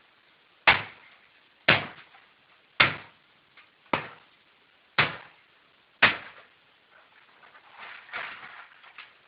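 Six heavy hammer blows, about one a second, striking a Canon Pixma iP4200 inkjet printer, followed by fainter knocks near the end.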